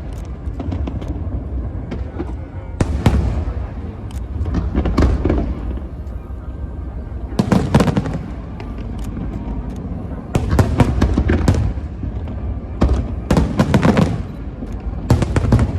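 Aerial fireworks display: clusters of sharp bangs and crackling shell bursts come about every two to three seconds over a steady low rumble.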